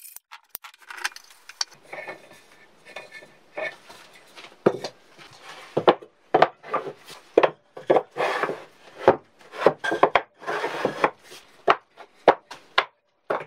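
Wooden blocks and beams being slid and set down on a plywood surface: irregular knocks of wood on wood mixed with short scrapes.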